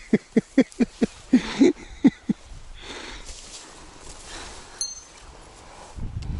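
A rapid staccato run of about a dozen short, low-pitched voiced calls over the first two seconds or so. Then soft footsteps over low tundra vegetation and a single light metallic clink as the spinning rod is picked up.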